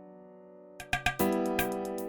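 Background music: a sustained chord fades away, then a beat with sharp drum hits and a new, louder chord starts a little under a second in.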